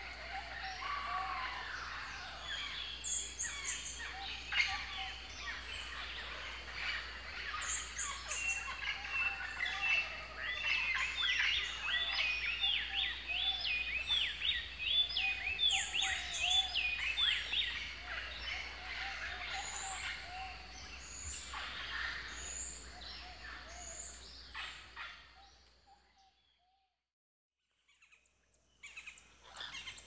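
Asian fairy-bluebirds and other forest birds calling and singing, a busy mix of whistled and chattering notes with a fast run of repeated notes partway through. The birdsong fades out near the end, then starts again.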